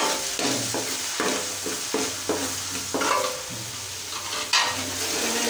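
Ginger and garlic sizzling in hot oil in a pan as they are sautéed to brown, with a spoon stirring and scraping against the pan in a run of short strokes. One sharper knock comes near the end.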